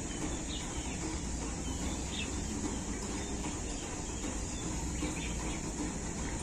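Steady outdoor background noise, a low rumble with a high hiss, with a few faint, short bird chirps scattered through it.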